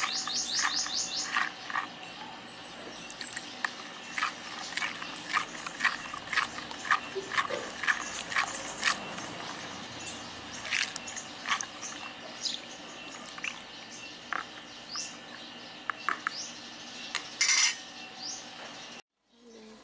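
Short wet clicks and squelches of a hand squeezing and breaking up clotted pig's blood in a plastic basin, with birds chirping and trilling in the background.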